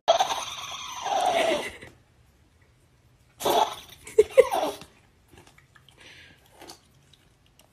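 Small dog vocalizing in two bursts, with pitched sounds sliding downward, while having its belly rubbed.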